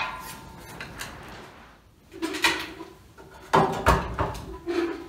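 Metal hardware being handled: a sharp clink of nuts and threaded rod at the start, then a few scattered knocks and clunks in the second half.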